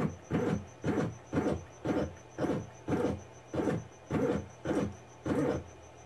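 The CNC-converted mini mill's axis drive motor moving the table in a run of short jogs, about two a second. Each jog is a brief whine.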